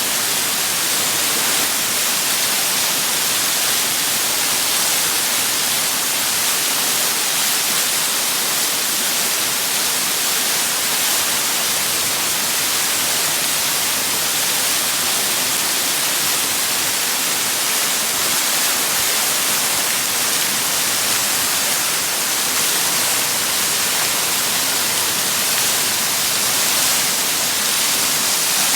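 Waterfall rushing: a loud, steady, hissing roar of falling water that holds level throughout.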